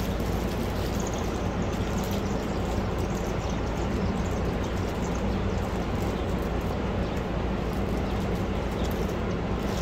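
Steady rushing background noise with a low hum, with light crinkling of a small plastic parts bag being handled and opened.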